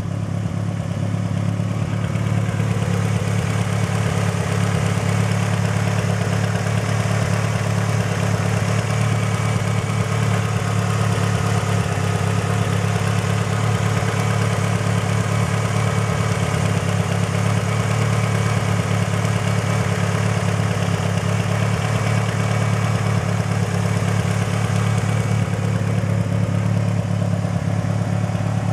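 Mitsubishi Lancer Evolution VIII's turbocharged 4G63 four-cylinder idling steadily when fully warm, with a ticking noise from the top end that the owner suspects may be lifter tick rather than normal valvetrain noise.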